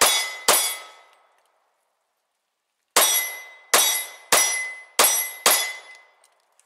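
Smith & Wesson M&P40 Compact .40-calibre pistol firing: a shot at the very start and another half a second later, then after a pause of about two and a half seconds five more shots about two-thirds of a second apart, each a sharp crack with a short ringing tail.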